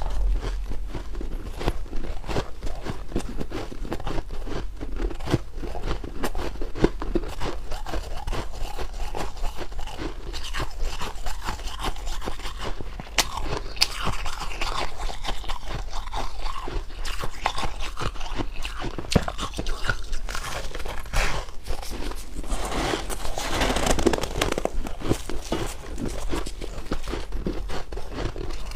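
Ice being bitten and chewed close to the microphone: a steady run of crunching and crackling, heavier in two stretches around the middle and near the end.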